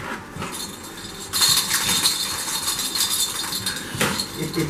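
French bulldog puppies scrambling about on a fleece blanket: a rustling, scrabbling noise that starts about a second in and eases off near the end.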